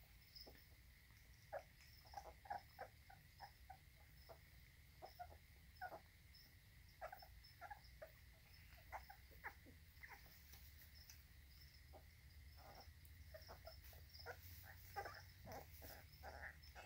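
Faint, irregular smacking and licking from a litter of young puppies eating raw ground beef, over a steady background chirping of crickets.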